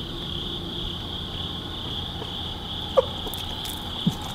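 Crickets chirping in a steady chorus, with a low even rumble beneath and two faint short squeaks about three and four seconds in.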